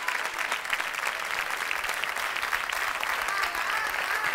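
Studio audience applauding steadily, a dense crackle of many hands clapping.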